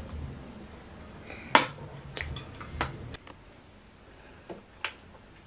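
Metal fork clinking against a plate several times while eating, the loudest strike about one and a half seconds in. After about three seconds the low background drops away, leaving two short faint taps near the end.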